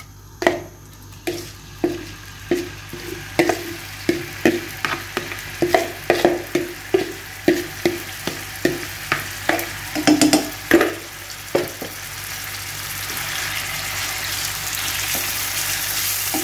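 Marinated chicken pieces going into hot oil in a non-stick frying pan. For the first twelve seconds there are short knocks about twice a second as the chicken is worked out of the bowl. After that, a sizzle grows steadily louder as the chicken fries and is stirred with a wooden spatula.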